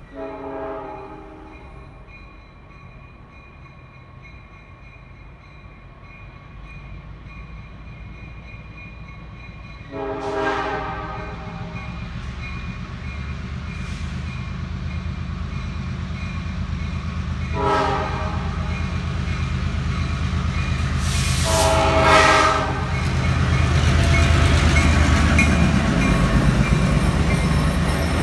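Two EMD MP15AC diesel locomotives sound their horn four times in the grade-crossing pattern, long, long, short, long; the last long blast is the loudest. The diesel engines' rumble grows steadily louder as the train nears and reaches the crossing, over the steady ringing of the crossing bell.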